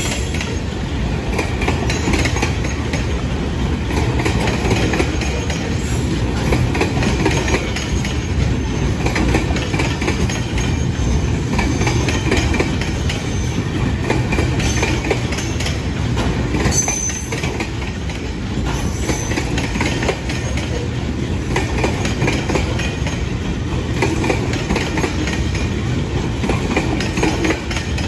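Train rolling past close by: a continuous steady rumble of wheels running on the rails, with a few short high squeals past the middle.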